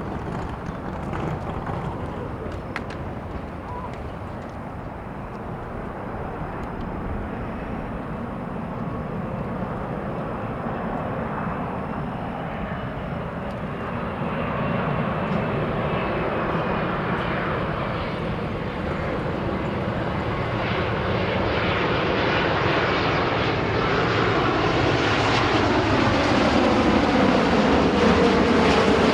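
Jet airliner's engines, a Boeing 787-9, growing steadily louder as the aircraft approaches, with a whine that slides down in pitch near the end.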